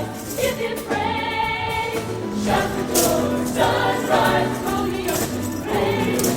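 High school show choir singing with a live band: many voices together over bass and drums, in a gospel style.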